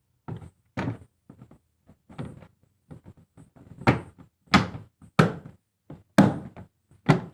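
A series of separate knocks and thuds, about ten of them at uneven spacing, the loudest in the second half.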